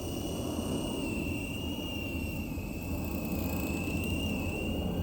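Small electric motor of a Sky Rover toy helicopter whining at a high, fairly steady pitch with a slight waver, over a low rumbling noise.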